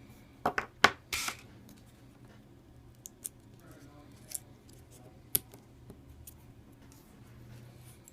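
Sharp clicks and snaps of a Samsung Galaxy S4's small plastic parts being handled during disassembly. The loudest cluster of clicks comes about half a second in, followed by a brief scrape. A few single clicks come over the next few seconds.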